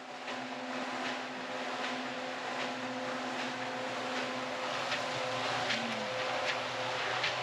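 Harbor Freight electric concrete mixer running steadily, its drum turning a batch of concrete, with a sharp tick repeating a little more than once a second.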